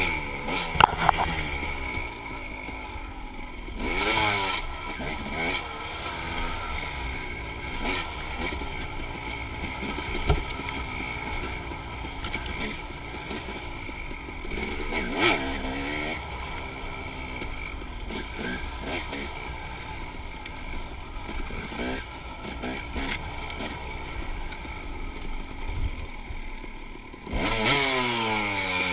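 KTM enduro dirt bike engine riding a rough trail, its revs climbing and dropping repeatedly as the throttle is opened and closed, with several hard rises in pitch and a loud one near the end. Occasional sharp knocks from the bike over the rough ground.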